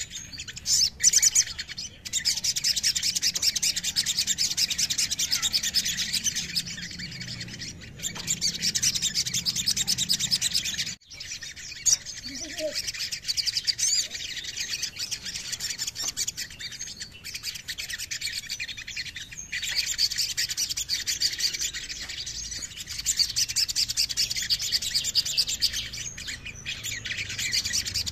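Male olive-backed sunbird singing: long runs of fast, high, chittering trills, breaking off briefly about a third of the way in and picking up again.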